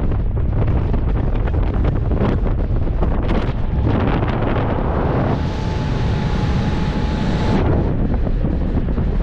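Airflow buffeting the microphone of a skydiver's body-mounted camera during descent under an open parachute canopy: a steady, dense rush, heaviest in the low end and changing with gusts. A faint steady tone sounds for about two seconds midway.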